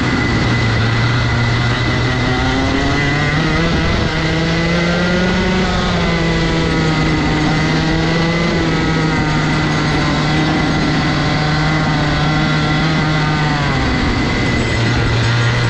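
Rotax 125 cc single-cylinder two-stroke kart engine running hard on track. The revs climb about three seconds in and hold high, then drop sharply near the end before starting to climb again.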